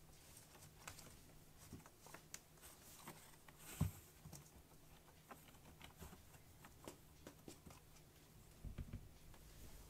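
Kittens' paws and claws scratching and tapping on a corrugated cardboard scratcher as they tussle: scattered soft clicks and scrapes, with a louder knock a little under four seconds in and a short run of knocks near the end.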